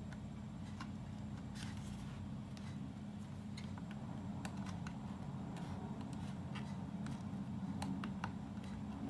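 Scattered light clicks and taps of small parts and tools being handled while an Asus Strix 7.1 sound card amplifier is taken apart, over a steady low hum.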